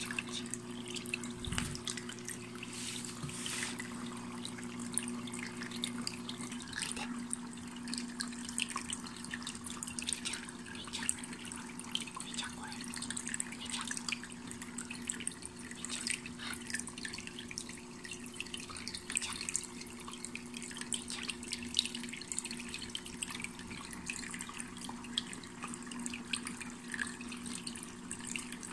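MOSPRO pet water fountain running continuously, water trickling and dripping from its flower-shaped spout into the basin. A steady low hum from its pump sits under the trickle.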